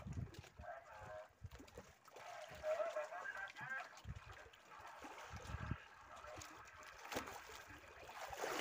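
Faint wind and sea noise with low gusts on the microphone, and a few short, wavering distant calls about a second in and again around three seconds in.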